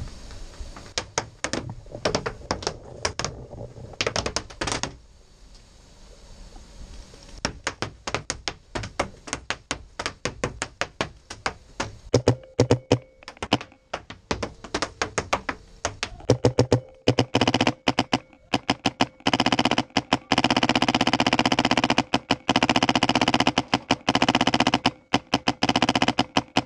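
Paintball markers firing: scattered single shots and short strings at first, then long rapid strings of shots, several a second, from about two-thirds of the way in, with sharp knocks of balls striking wood.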